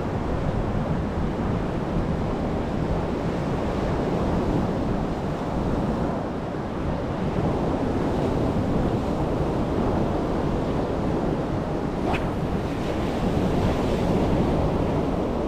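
Sea surf breaking and washing on a sandy beach, a steady rushing wash, with wind buffeting the microphone.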